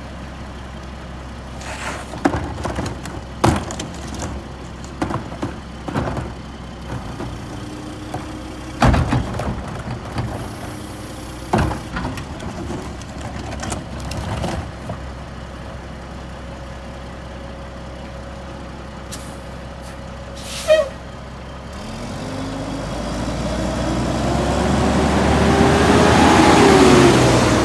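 Mack LE garbage truck idling while wheeled carts are banged into its Heil carry can, giving a string of clanks and thuds. About three-quarters through there is a short blast of air from the brakes, then the diesel engine revs up, rising in pitch and growing loud as the truck pulls away.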